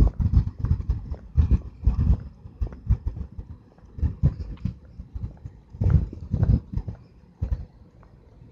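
Footsteps and the jostling of a handheld recorder while walking on a concrete sidewalk: uneven runs of low thuds with a few sharper clicks, pausing briefly twice and dying down near the end.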